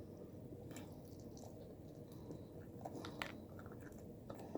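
A person chewing fried chicken with the mouth close to the microphone: soft, irregular chewing with a few sharp clicks.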